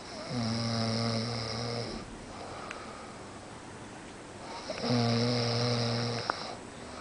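A man snoring in his sleep: two snores about four seconds apart, each a steady low tone with a hiss over it, lasting under two seconds.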